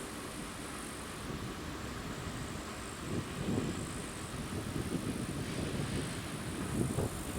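A freight train with its locomotives approaching: a low engine-like drone and rumble that grows louder and pulses from about three seconds in.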